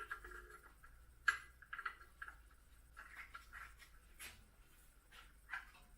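Faint scattered clicks and taps of hand tools and metal parts being handled under a car, with a sharper click about a second in.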